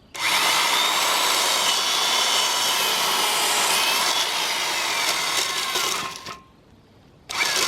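Vintage Milwaukee 6210 electric chainsaw switched on and sawing into a log, its motor whine shifting in pitch under load. It runs down and stops after about six seconds, and starts again just before the end.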